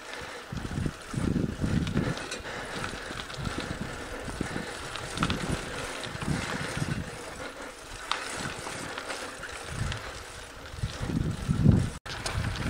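Bicycle rolling along a smooth dirt trail: wind gusting on the microphone over the hiss of tyres on dirt, with a few light clicks from the bike.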